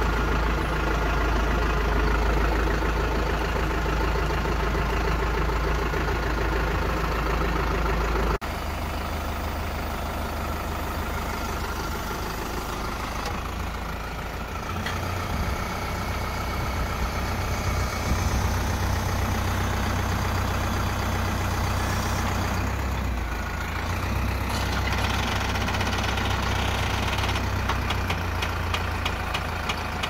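Farm tractor's diesel engine idling steadily, with an abrupt change in tone about eight seconds in.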